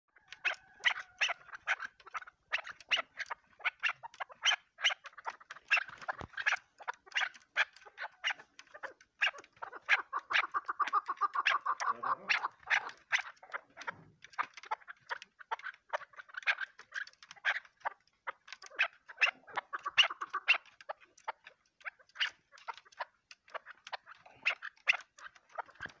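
Chukar partridge calling: long runs of short, rapid clucking notes, several a second, with a more drawn-out stretch of calling about halfway through.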